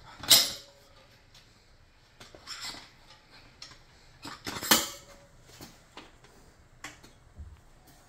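Steel Motion Pro tire irons clinking and knocking against the wheel rim as a dirt bike tire is levered onto it in small bites. Two sharp metal clinks stand out, one at the very start and one about halfway, with softer taps and clicks between.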